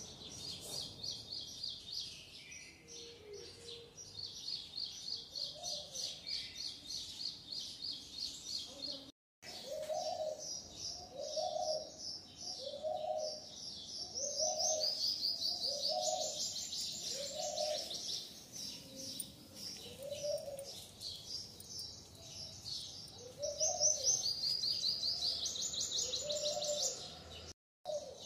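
Birds chirping in quick high trills, with a lower rising-and-falling call repeating about once a second. The sound cuts out to silence for a moment twice.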